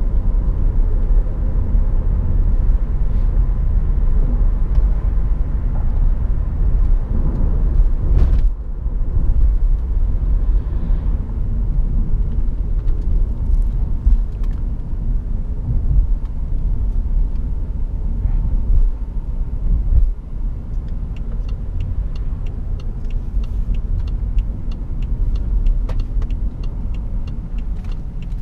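Inside the cabin of a 2012 BMW 535i (F10), the turbocharged straight-six engine and tyres make a steady low rumble on the move, with a short drop in level about eight seconds in. About 21 seconds in, the turn-signal indicator starts ticking, about two ticks a second.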